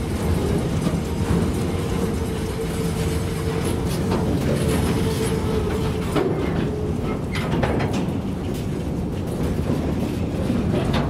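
Freight train's open gondola wagons rolling past, wheels rumbling and knocking over the rail joints. A steady tone runs under them and stops about two-thirds of the way in.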